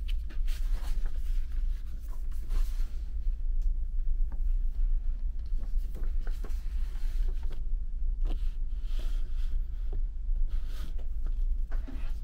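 Steady low drone of a car ferry's engines heard on board, with scattered soft rustles and light clicks of handling.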